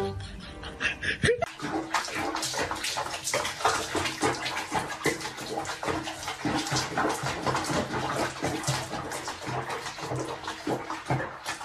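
Bath water splashing and sloshing around a cat sitting in a tub, irregular and continuous after a short stretch of music at the start.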